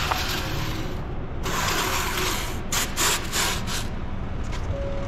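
Foam spacer blocks scraped over a concrete floor and knocked into place, with a cluster of sharp knocks about three seconds in, over a low steady rumble.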